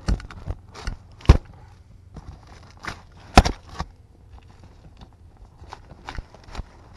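Cardboard box and its contents handled by hand as a taped box is pulled open: scattered rustles and crinkles of cardboard and packaging, broken by short sharp knocks, the two loudest about a second and about three and a half seconds in.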